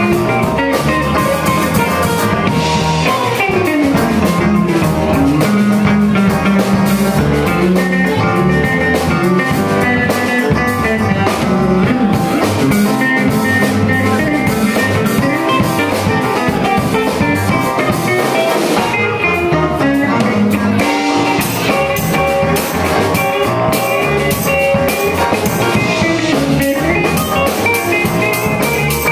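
Live band playing an instrumental funk tune: electric guitar over a drum kit.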